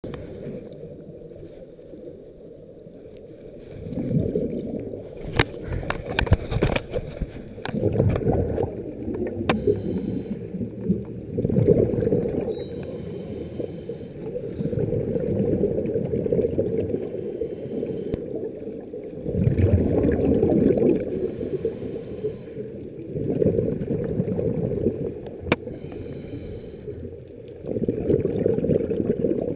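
Scuba diver's exhaled bubbles from a regulator, heard underwater: a low bubbling rumble in bursts every few seconds, with a few sharp clicks early on and once near the end.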